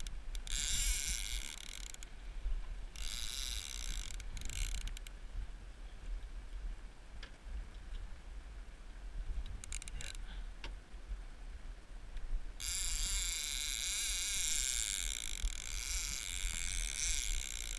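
Fishing reel's drag buzzing in several bursts, the longest running through the last five seconds, as a hooked striped bass pulls line off the reel. A low steady rumble lies underneath.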